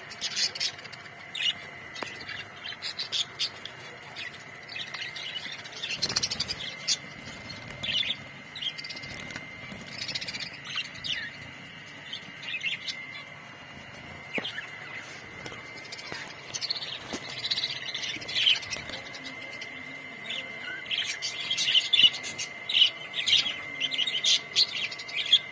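A colony of budgerigars chirping and warbling, with many short calls overlapping and growing busier near the end, over a steady high tone.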